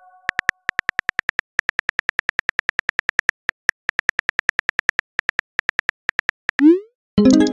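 Rapid keyboard typing clicks from a texting app, about nine taps a second with short pauses. Near the end comes a quick rising swoosh and a chime as the message is sent.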